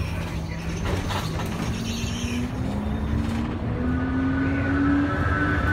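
Shuttle bus running and gathering speed, heard from inside the bus: a low rumble under a whine that rises steadily in pitch, joined by a higher whine about three and a half seconds in.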